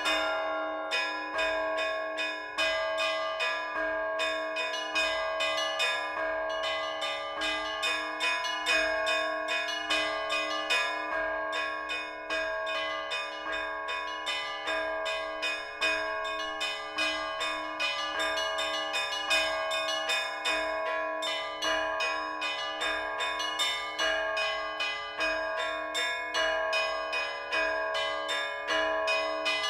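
Russian Orthodox church bells rung by hand in a continuous peal: the small bells are struck in a quick, even rhythm over the sustained ringing of larger bells.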